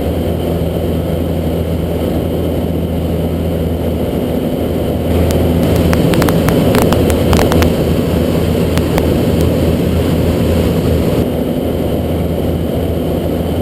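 Motorcycle engine running steadily, a little louder for a few seconds from about five seconds in.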